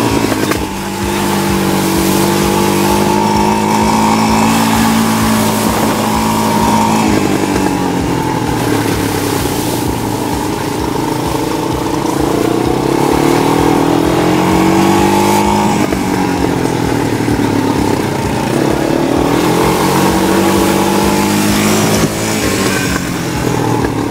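ATV (quad bike) engine running under way on a dirt trail, its pitch climbing and dropping several times as the throttle is opened and eased off, with rough rumble and hiss from the ride.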